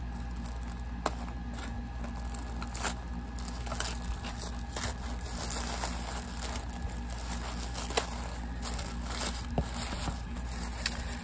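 Tissue paper crinkling and rustling as a foil seal sticker is picked and peeled off and the wrapping is pulled open, with scattered small crackles and clicks over a steady low hum.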